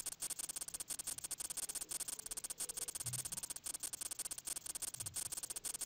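CNC simulator's axis-jog sound: a fast, even stream of fine clicks, like a crackle, as the virtual milling table traverses along the X axis.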